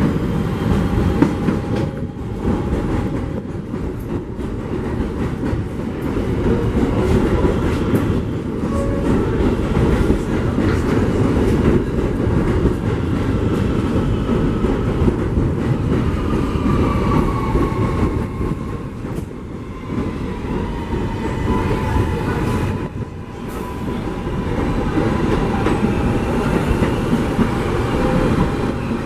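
New York City subway train running along the track with a steady rumble and the clatter of wheels over rail joints; partway through, a faint whining tone slides down in pitch.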